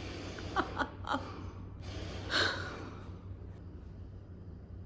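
A woman's breathy, mostly silent laughter: a few short puffs of breath, then one louder breathy burst about two and a half seconds in.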